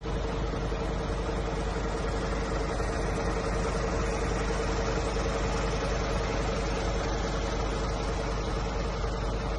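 Scania truck engine idling steadily, a low even rumble with a steady hum over it.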